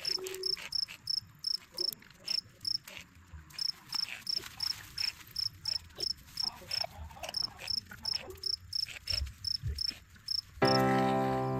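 Cricket chirping steadily, short high chirps about four a second, with a brief pause about three seconds in. Music comes in loudly about a second before the end.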